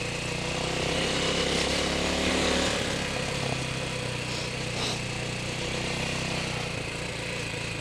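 TDR 300 dirt bike engine running while riding along a dirt trail, louder for the first couple of seconds and then easing off about three seconds in, with a steady rush of wind and tyre noise.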